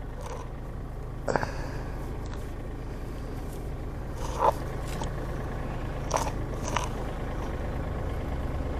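Steady low hum of an idling tractor engine, with a few short crunchy rustles and clicks as rope and rigging are handled and untied.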